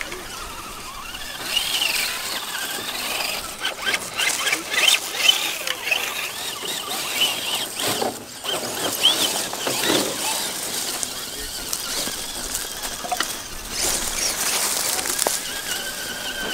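Small electric motors and geartrains of 1/10-scale RC crawler trucks whining in short bursts whose pitch rises and falls with the throttle. Dry grass and twigs crackle under the tyres as the trucks crawl through brush.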